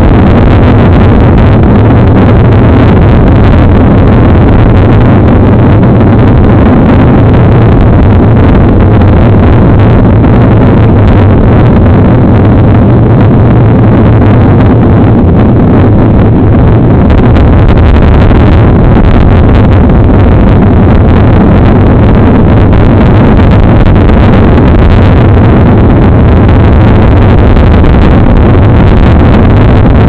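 Loud, steady rumbling noise of wind and vibration on the microphone of a camera riding on a mountain bike over a dirt road, with no distinct events standing out.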